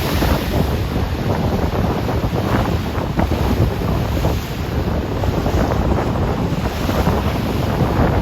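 Rough Atlantic Ocean waves churning and crossing one another, a steady rushing noise, with wind buffeting the microphone.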